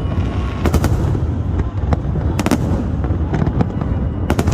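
Aerial fireworks bursting: sharp bangs every second or so, some in quick doubles, over a continuous low rumble of booms and crackle.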